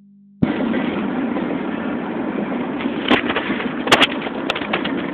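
Loud, steady street traffic noise of running vehicle engines, cutting in abruptly about half a second in, with a few sharp clicks between about three and four and a half seconds in.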